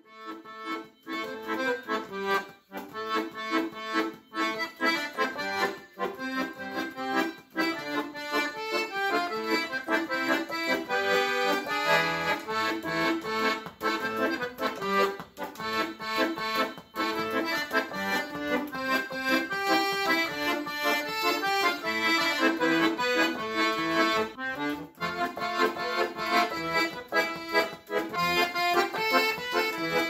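Piano accordion playing a melody, its keyboard notes changing in quick succession.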